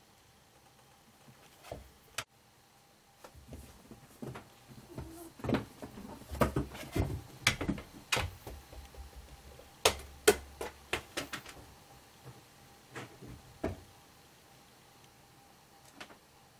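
A cat's paws knocking, tapping and scratching on a small toy basketball hoop and its carpeted post, a flurry of irregular knocks and thuds through the middle of the stretch.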